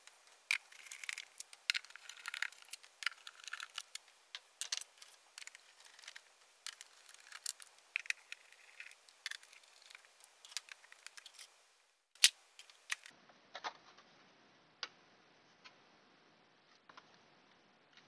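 Precision screwdriver undoing the small screws of an LED light's housing, with screws and tools handled on a silicone work mat: irregular scratchy clicks and light taps, thinning out to a few sparse ticks after about twelve seconds.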